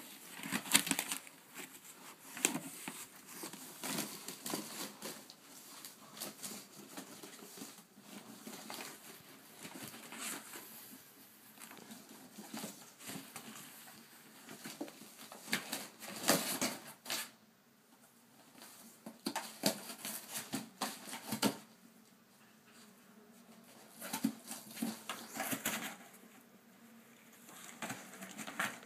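A dog rummaging at a cardboard package: scraping, rustling and knocking of cardboard and paper in irregular spells, with quieter gaps between.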